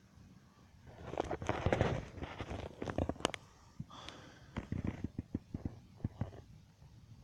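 Fireworks going off: a rumbling burst about a second in, then a string of sharp pops and crackles.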